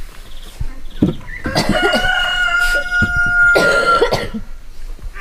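A rooster crowing once: one long held crow starting about a second and a half in and lasting about two and a half seconds. A few knocks of heavy wooden beams being handled sound around it.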